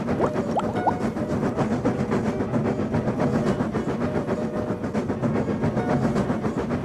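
Train sound effect: a train running along the rails, a steady rumble with a constant low hum.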